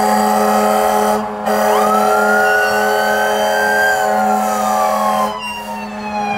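Fire truck siren wailing: its pitch rises quickly, climbs slowly, then falls in a long slide and starts rising again near the end. A steady held tone sounds alongside it, breaking briefly about a second in and stopping about five seconds in.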